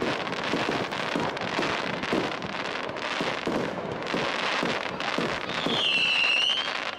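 Low-set festival fireworks bursting: a dense crackle with repeated low pops about twice a second, and a high whistle coming in near the end.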